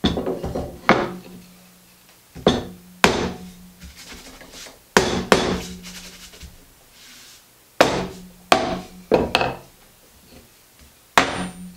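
Mallet striking a metal holdfast set in a workbench dog hole: about ten sharp knocks, several in quick pairs, each followed by a brief low ring from the bench.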